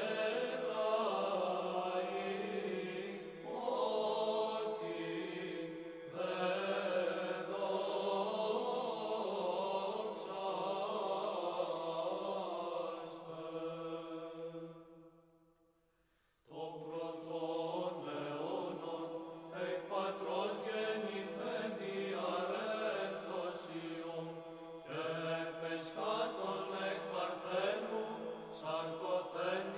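Choral chant, several voices singing a hymn over a steady held low note. It fades away about fifteen seconds in, and a new chanted phrase begins a second or so later.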